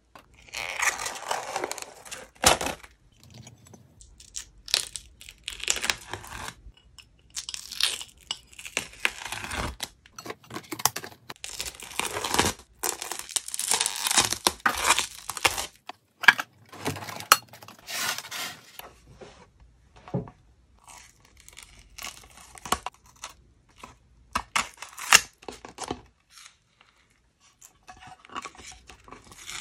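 A thin dried film of clear glitter slime being peeled off plastic and wooden dishes, crackling and tearing in irregular stretches with short pauses and sharp little clicks. The peeling grows sparser and quieter over the last few seconds.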